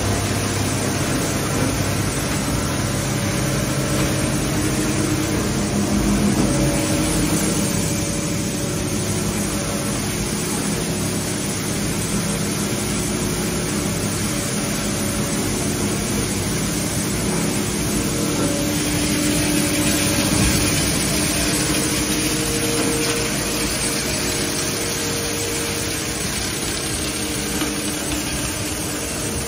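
Industrial shredder running: a steady mechanical drone of the motor and cutting rotor with a low hum, and no sharp impacts.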